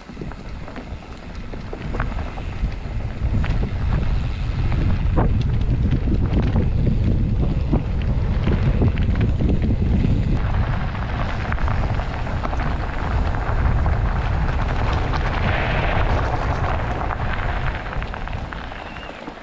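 Wind noise on the microphone of a camera on a moving mountain bike, mixed with the tyres rolling over the trail. About ten seconds in a brighter hiss joins and holds.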